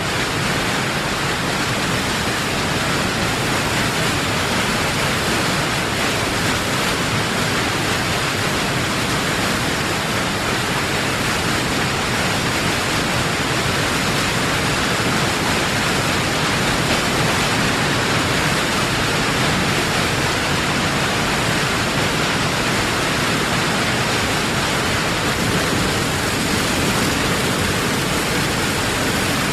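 Heavy waterfall: a dense, continuous rush of falling water, steady throughout.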